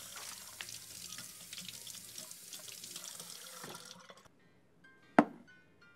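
Kitchen faucet running into a steel sink while carrots are rinsed under the stream; the water stops about four seconds in. A single sharp knock follows about a second later and is the loudest sound.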